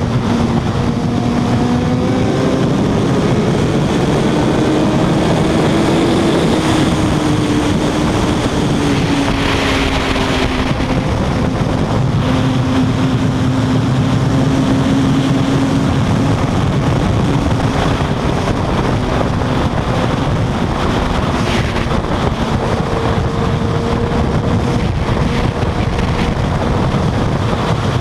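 Wind rushing over the microphone with the steady drone of a Suzuki GSX-R1000 inline-four sport bike's engine underneath, cruising at highway speed of about 150–170 km/h.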